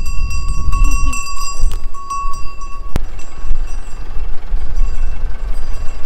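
Wind rumbling on the microphone, with a steady high ringing over it and a single sharp click about three seconds in.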